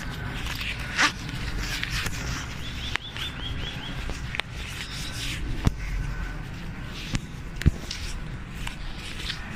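Footsteps walking along an old railway trackbed, with irregular sharp knocks, over a steady low rumble. A bird gives a quick run of about six short chirps near the middle.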